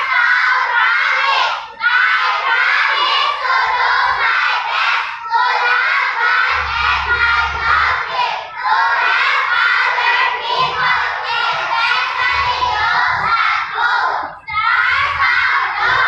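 A group of young children reciting their scout promise together in unison, loud, phrase by phrase with short pauses between lines.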